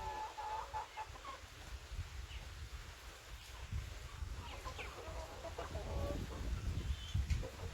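Chickens clucking: a few short calls near the start and a cluster of calls in the middle, over a steady low rumble.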